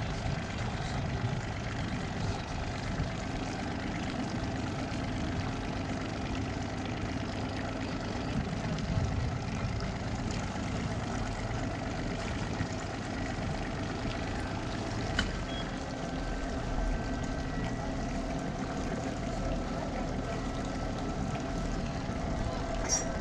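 Boat engine idling steadily while the boat moves ahead at slow speed.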